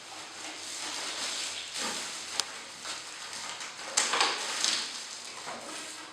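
Rustling handling noise with a sharp click about two seconds in and a louder knock about four seconds in, typical of vacuum cleaner accessories and plastic parts being handled and put away.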